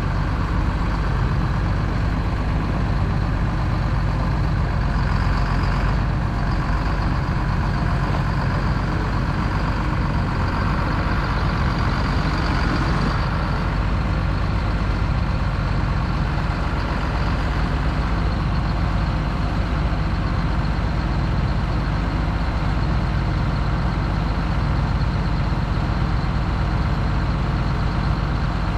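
A farm vehicle's engine running steadily at an even speed, a continuous low hum.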